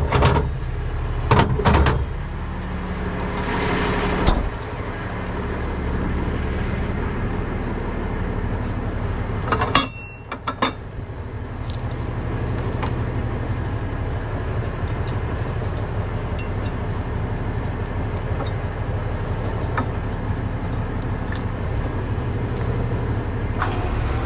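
A 20-ton tow truck's engine runs steadily while the rear wheel-lift hydraulic controls are worked. Sharp metal clanks come from the chains and hooks a couple of seconds in and again about four seconds in. The running sound dips briefly about ten seconds in, then a few more clanks follow.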